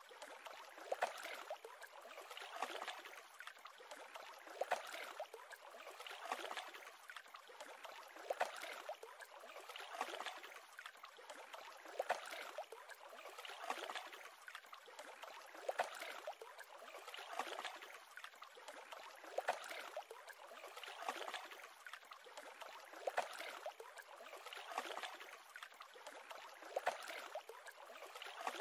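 Small lake waves lapping, a soft splash about every two seconds.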